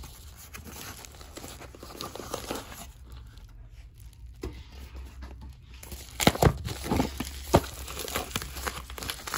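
Crinkling and rustling of white paper packaging wrapped around bubble wrap as it is handled and pulled open by hand, with some tearing. There are louder, sharper crackles and a few bumps from about six seconds in.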